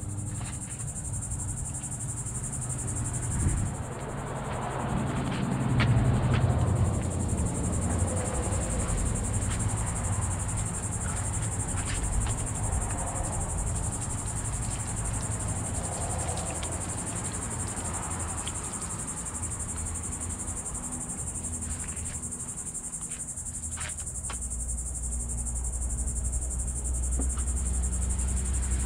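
Insects droning steadily at a high pitch, dropping out for a few seconds about four seconds in and then resuming, over a rushing, rumbling background noise.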